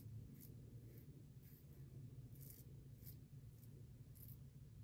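Bevel safety razor scraping through several days' stubble on the neck: short, faint strokes about one every half second, over a low steady hum.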